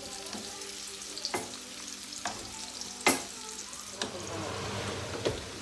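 Chopped carrot, courgette and onion sizzling as they fry in hot oil in a pan, being stirred, with a few sharp knocks of the utensil against the pan; the loudest knock comes about three seconds in.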